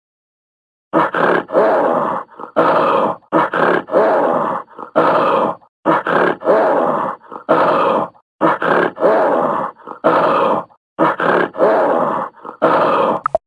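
An animal sound effect: a long series of short, rough animal calls, one or two a second, starting about a second in.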